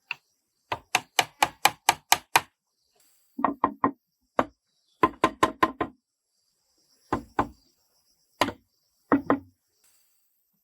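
A hand tool striking wood in quick runs of sharp blows, about four a second, with short pauses between runs. The first run has seven blows, the next four and five, and the last few runs are shorter.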